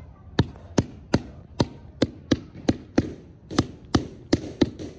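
A mallet tapping a paving tile down into its sand bed, bedding it level with the tiles around it. A steady run of sharp taps, two to three a second.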